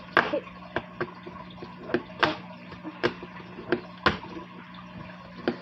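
Wooden fingerboard deck clacking against a tabletop during repeated kickflip attempts: about eight sharp taps and snaps at uneven spacing, a few louder than the rest. A steady low hum runs underneath.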